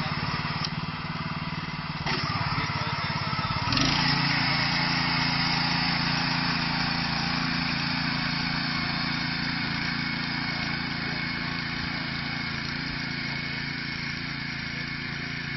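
Small engine of a walk-behind crop reaper running steadily as it cuts. It picks up speed about four seconds in, then holds a steady, higher note.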